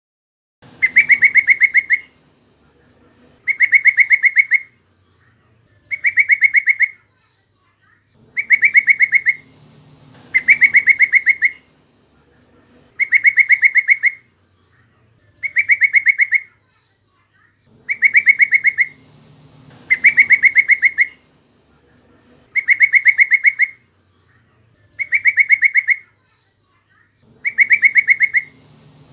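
Yellow-vented bulbul (trucukan) call: a fast, chattering run of notes lasting about a second, repeated at even spacing about every two and a half seconds, as a looped lure call.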